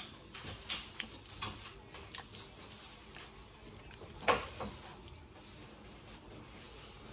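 A hand squishing and rubbing raw chicken breasts in a thick spice marinade in a bowl: soft wet squelches and small clicks, with one louder squelch about four seconds in.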